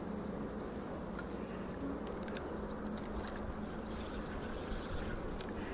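Outdoor summer ambience: a steady high insect drone over a low rumble, with a faint steady hum and scattered faint clicks.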